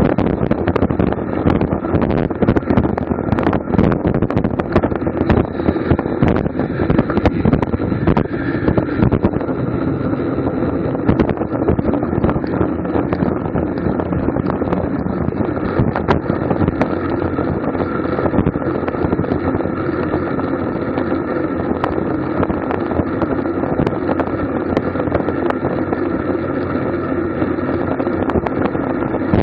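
Wind rushing over the microphone of a camera mounted on a racing bicycle at speed, with steady road noise and many small rattles throughout.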